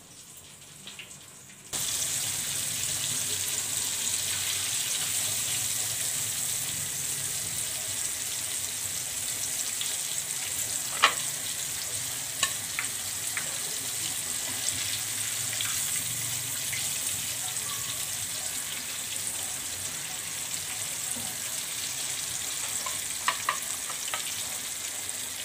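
Flour-coated chicken fillet deep-frying in oil in a steel kadhai: a steady sizzle that starts suddenly about two seconds in. A metal turner clinks against the pan a few times.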